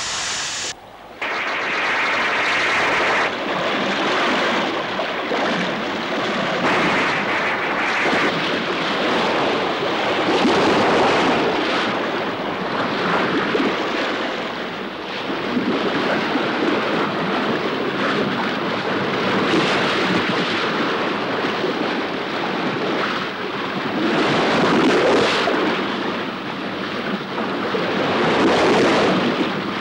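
Loud rushing and churning of rough sea water and spray around an open wooden whaleboat, with wind buffeting. It surges and eases every few seconds, with a brief drop about a second in.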